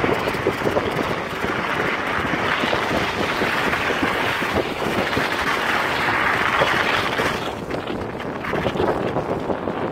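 Wind rushing over the microphone of a camera moving fast along the track, a steady noisy buffeting with scattered short knocks, easing a little near the end.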